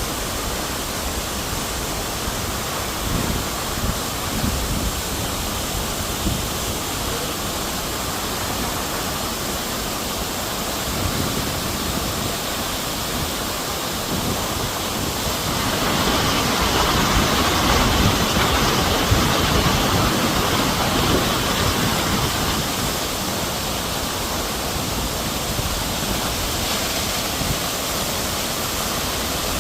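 Waterfall: a steady rush of falling water, growing louder for several seconds a little past halfway.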